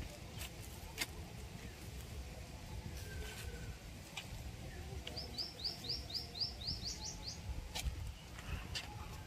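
A small bird calls a quick run of about ten short rising chirps, about four a second, starting about five seconds in. A few sharp clicks sound here and there over a low background hum.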